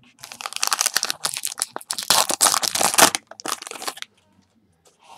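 A baseball card pack's wrapper being torn open and crinkled by hand: dense crackling for about three seconds, then a shorter burst of crinkling about three and a half seconds in.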